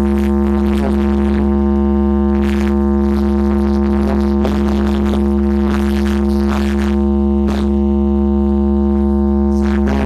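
A giant carnival sound system playing one long held buzzing synth drone over a heavy sub-bass, with scattered sharp hits on top; the drone stops near the end.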